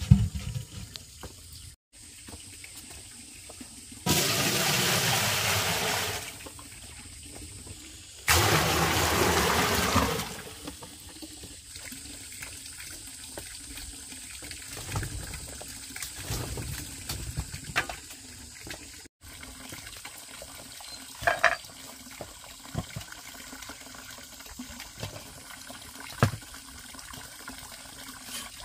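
Water pouring or splashing in two rushes of about two seconds each, the first about four seconds in and the second about eight seconds in, with faint scattered knocks after them.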